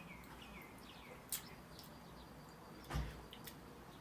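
Faint high chirps, each falling in pitch, repeat several times a second and stop about a second in. A sharp click follows, then a single dull thump about three seconds in.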